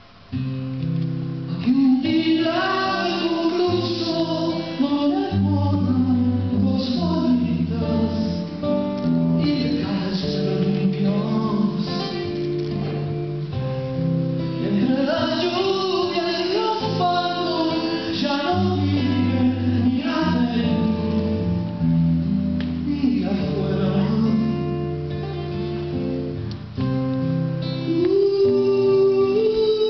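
A man sings a song to his own acoustic guitar accompaniment, performed live. The guitar comes in just after the start, following a brief hush.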